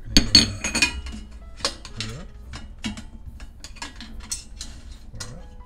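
Aluminium extrusion frame parts clicking and knocking against each other and the work surface as a printer frame joint is pushed together and squared by hand. A cluster of louder knocks comes in the first second, followed by scattered lighter clicks.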